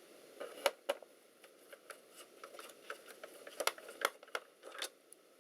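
A small screwdriver backing out loose laptop keyboard screws: irregular light clicks and scrapes of metal on metal, with a few sharper clicks.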